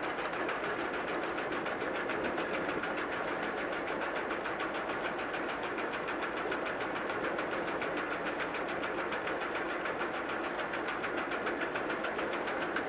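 Steady hissing splash of water pouring from a pipe under a steam tank locomotive's footplate onto the trackside ballast, with a fast, even flutter in it.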